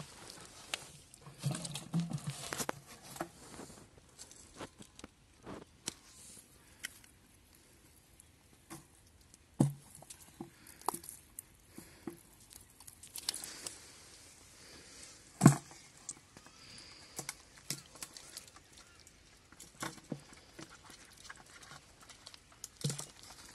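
Hands grabbing in wet mud and shallow muddy water: scattered squelches, slaps and small splashes, with one sharp slap about two-thirds of the way through.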